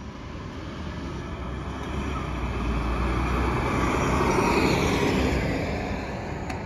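Low-floor city transit bus driving past: engine and tyre noise builds to its loudest about four and a half seconds in, then fades as it moves away.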